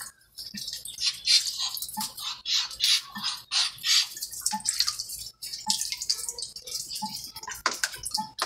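Muscovy duck dabbling with its head dipped in a plastic tub of water, making quick irregular splashes and drips.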